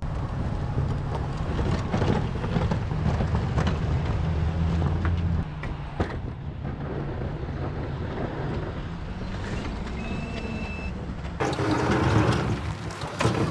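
Pickup truck engine running with a steady low drone while plowing snow. Near the end a louder scraping rush comes in as the Western plow blade pushes snow along the pavement.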